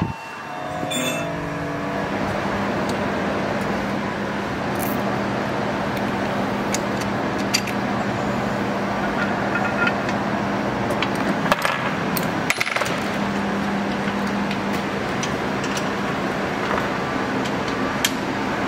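A steady mechanical hum with a constant low tone, over which come scattered light clicks and clinks as plastic and metal intercooler pipes and clamps are handled and fitted.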